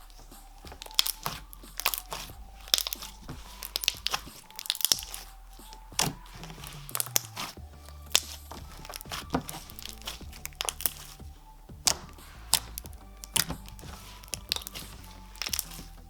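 Slime being pressed and stretched by hand, giving irregular sharp crackles and bubble pops, over soft background music.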